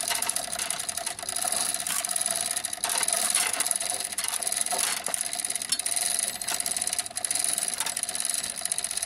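Motorized hoist running steadily under load, lifting the hanging engine: a constant whine with a fast rattling of chain and metal clicks.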